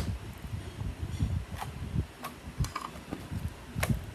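Clear slime being squished and worked by hand, giving irregular small sharp clicks and pops over soft low squelching.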